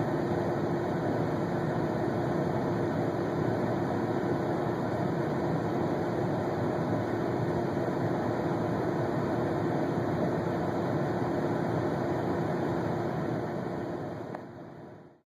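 Steady mechanical drone with a constant hum running under it, fading over the last second and then cutting off.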